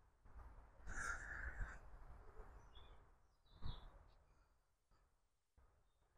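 Faint countryside ambience: a few short bird chirps over a low rumble, with a louder stretch of noise about a second in and a single thump just past halfway.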